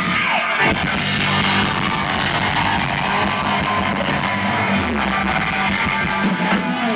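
Live rock band playing loud, with electric guitar prominent.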